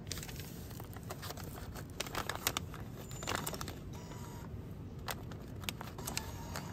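Paper banknotes crinkling and rustling in the hand, with a run of small sharp clicks, as a ¥1000 note is pushed into a vending machine's bill slot.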